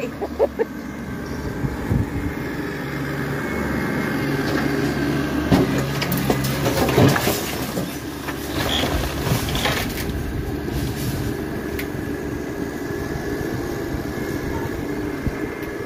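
Compact tractor engine running steadily as its front loader pushes into a collapsed brick building, with clattering and crashing of falling debris between about five and ten seconds in.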